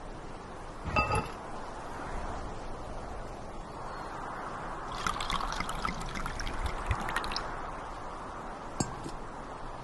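A stemmed wine glass set down on stone with a ringing clink about a second in. From about four seconds in, red wine pours and trickles from a bottle for about three and a half seconds. A short, ringing glass clink comes near the end.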